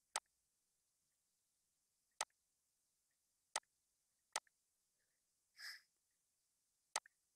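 Computer mouse clicking five times: single sharp clicks a second or two apart. A short soft hiss falls between the fourth and fifth click.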